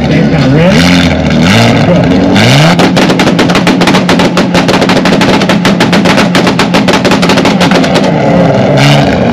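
A car engine revved hard through a loud exhaust in quick blips, then held at high revs for about five seconds with a rapid crackle of pops, then blipped again near the end.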